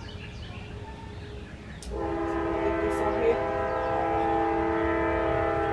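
Train horn blowing one long, steady multi-note chord, starting about two seconds in.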